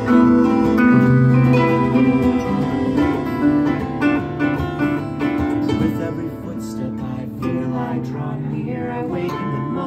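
Live acoustic music: a harp and an acoustic guitar playing together, plucked notes ringing over one another.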